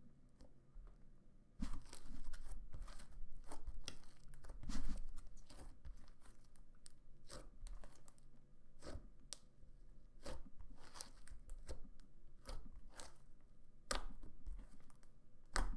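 Slime being squeezed and stretched by hand, giving irregular small sticky clicks, crackles and pops.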